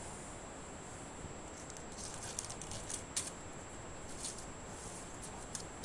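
Faint rustling and scattered light clicks of bark-chip substrate being disturbed in a water monitor's enclosure, a quick flurry of clicks around the middle and a few single ones later.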